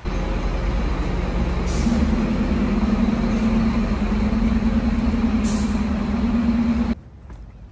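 A bus engine running loud and steady close by, with a strong low hum that comes in about two seconds in and two brief hisses; it cuts off abruptly near the end.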